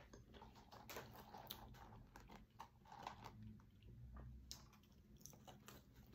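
Faint chewing of french fries, with soft scattered clicks and rustles as fingers reach into a paper fry carton.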